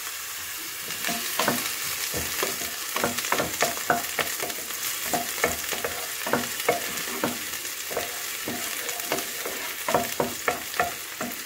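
Chopped red onion sizzling in hot oil in a nonstick pan, stirred with a wooden spoon that scrapes and knocks against the pan in many quick, irregular strokes. The onion is just starting to brown.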